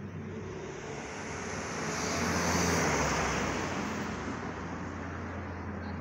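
A motor vehicle drives past on the street, its tyre and engine noise swelling to a peak about two and a half seconds in and then fading away, over a steady low traffic hum.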